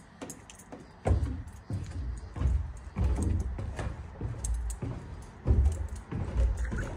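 Footsteps going down wooden stairs: dull, heavy steps roughly every two-thirds of a second, starting about a second in.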